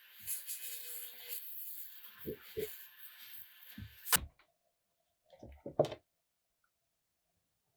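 Workshop hand-tool sounds: rubbing and scraping over a steady hiss with a few soft knocks, cut off by a sharp click about four seconds in, then two more knocks a little later.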